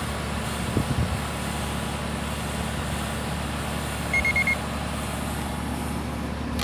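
A steady low machine hum, with a couple of light knocks about a second in and four quick high electronic beeps a little after four seconds.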